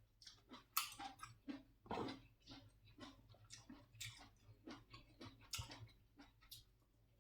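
A person chewing seafood close to the microphone: soft, irregular wet smacks and clicks of the mouth, several a second.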